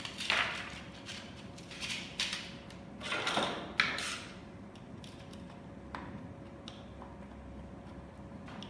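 Handling noise from a plastic fisheye security camera: several short scrapes and knocks as the housing is turned over and set against a wooden tabletop, then faint clicks as a screwdriver works on the screws in its body.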